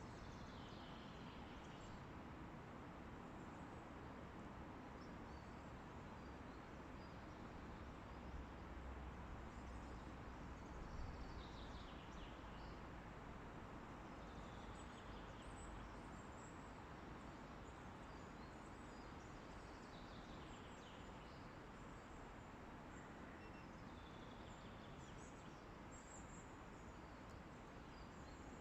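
Faint forest ambience: a steady hiss of wind through the trees, with scattered high chirps of distant birds. A low rumble of a stronger gust swells about a third of the way in.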